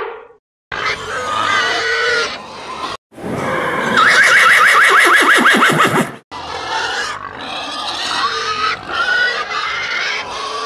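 A string of animal-call sound effects spliced one after another, with abrupt cuts and short silent breaks between them. Pig-like grunts are among them, and a loud rapid, rattling call runs from about four to six seconds in.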